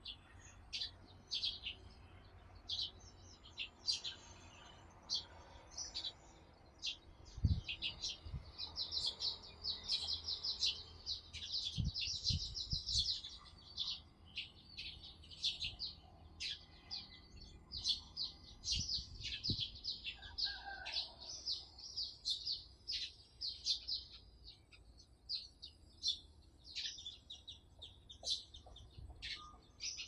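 Weaver birds chirping: many short, high chirps, running together twice into rapid chattering trills. A few low thumps come through as well, the loudest about seven seconds in.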